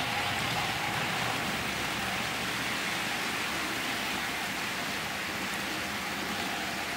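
OO gauge model trains running on a layout: a steady hiss and rumble of wheels on rail and motors, a little louder in the first second as a Hornby Eurostar passes close by, then holding level.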